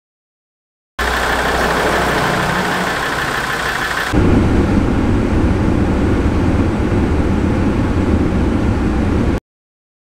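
SsangYong Rexton engine idling with the air conditioning on after a refrigerant recharge, heard in two joined clips: a cut about four seconds in switches to a louder, deeper running sound.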